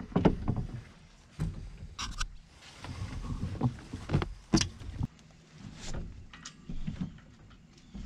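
Handling noises in a small fiberglass sailboat's cockpit: a line being pulled out and coiled, with irregular knocks, clunks and clicks against the hull and deck.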